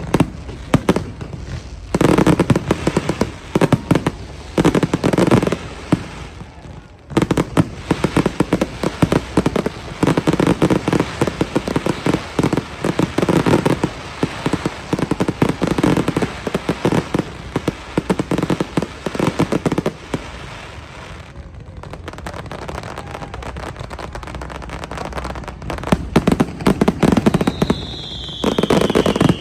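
Fireworks display: dense, rapid crackling and banging in long volleys, easing off for a few seconds past the middle and then building again. Near the end a single high whistle falls in pitch.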